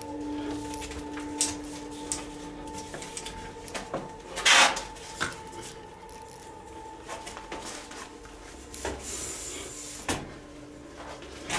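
Scattered faint knocks and clicks in a quiet room, with one louder, sharper rustling knock about four and a half seconds in, over a steady low hum.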